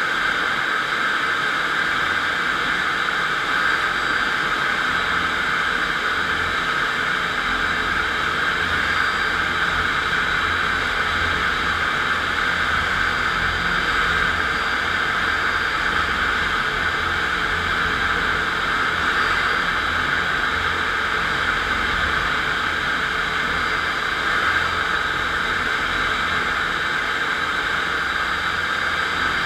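FastPrep walk-behind floor grinder running steadily under its electric motor, its 16-grit single-rhombus diamond grinding plates cutting a concrete floor: a loud, even, unchanging grinding noise.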